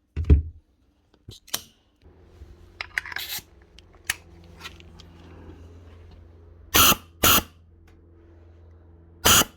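Basso 23-gauge headless pin nailer, its trigger valve fitted with new O-rings, being test-fired on air: sharp pneumatic bursts, two in quick succession about seven seconds in and another near the end, showing the trigger now works. Before them come a thump, a few clicks and a short hiss, over a steady low hum.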